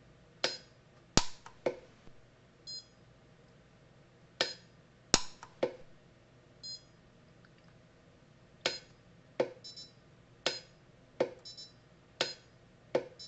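Orion pulse-arc micro welder firing about a dozen sharp snapping pulses, irregularly spaced roughly a second apart, with short high beeps from the welder between some of them. Because of an air gap between the stacked nib pieces, the pulses are melting only the top layer without fusing the pieces.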